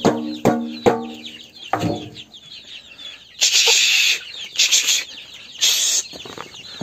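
Chickens disturbed while being shooed out of the coop: one bird gives a run of loud, sharp clucks over the first two seconds, with faint high cheeping throughout. Three short rustling bursts follow in the second half.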